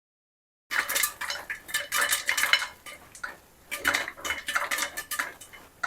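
After a short dead silence, a spoon stirs and scrapes dry corn kernels around inside a pressure cooker, in irregular clattering strokes of metal on metal.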